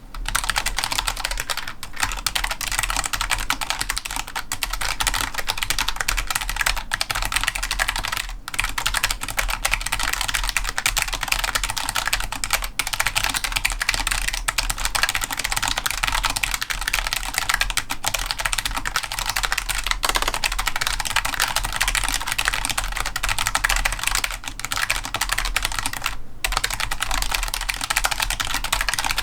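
Logitech G913 low-profile mechanical keyboard with GL Tactile switches being typed on fast: a continuous clatter of keystrokes, broken by short pauses about 8, 13 and 26 seconds in.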